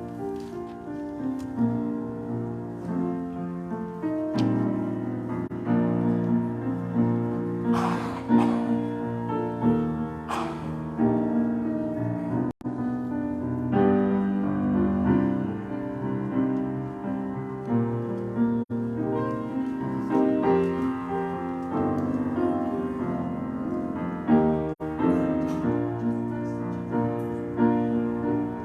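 Slow piano music of held, changing chords. The sound cuts out for an instant three times.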